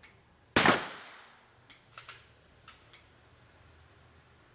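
A single gunshot about half a second in, its report fading over about a second, followed by a few faint, short clicks.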